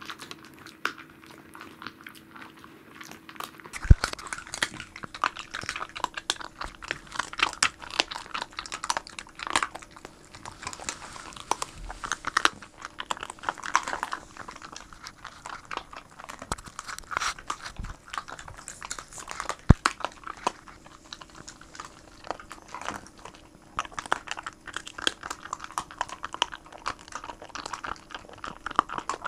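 Pembroke Welsh corgi crunching and chewing a piece of salmon backbone, in dense irregular crunches that start about four seconds in. There are two sharp knocks, about four seconds in and again near the twenty-second mark.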